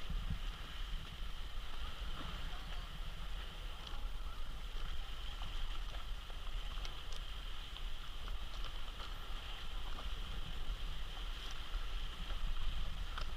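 Water lapping and trickling around a stand-up paddleboard, with scattered small drips and splashes over a steady low rumble.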